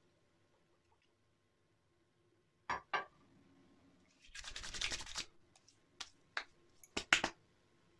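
Hands rubbing briskly for about a second, between two short knocks a little before and a few sharp clicks after.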